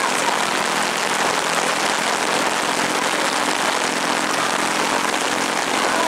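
Heavy rain falling steadily, an even hiss that does not let up.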